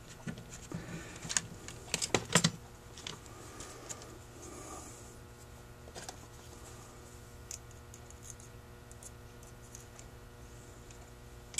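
Light clicks and taps of small metal parts against a Holley 2280 carburetor's body as a small link is worked down into the accelerator pump hole. A cluster of sharper clicks comes about one to two and a half seconds in, then only a few faint ticks.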